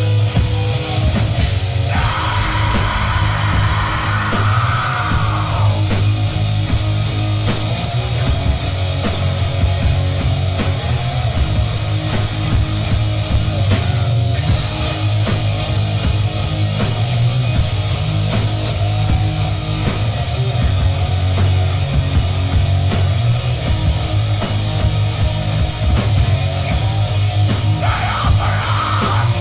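Black metal band playing live: distorted electric guitars and bass over fast, steady drumming, loud throughout.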